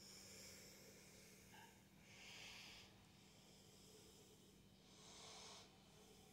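Faint, slow breathing: a soft airy breath about every two and a half to three seconds over a faint steady hum.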